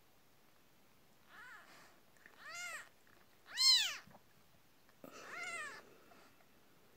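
Newborn kitten mewing four times, each a short high cry that rises and falls in pitch; the third is the loudest.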